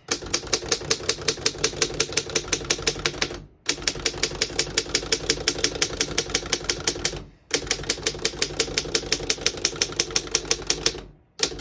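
1911 Underwood No. 4 manual typewriter being typed on fast, its typebars striking in an even clatter of about eight or nine strokes a second. The typing comes in three runs with brief pauses between them. The keys type cleanly without skipping or sticking.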